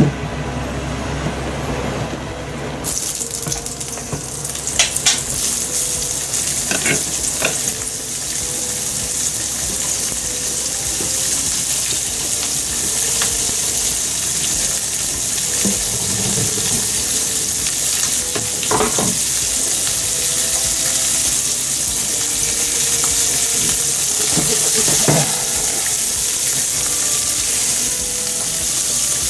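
Sliced pork and onion sizzling in oil in a frying pan, a steady hiss that starts about three seconds in, stirred with a wooden spatula that gives a few short knocks and scrapes against the pan.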